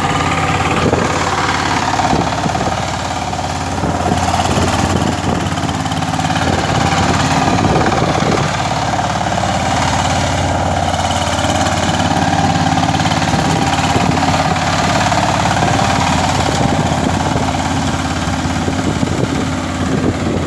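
Kirloskar power tiller's single-cylinder diesel engine running steadily while tilling a waterlogged, muddy field.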